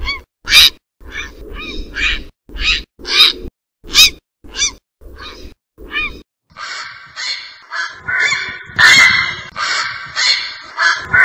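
Grey heron calls: short, coarse croaks about half a second apart, ten or so in the first six seconds. About six and a half seconds in they give way to a denser, almost unbroken run of overlapping croaking calls.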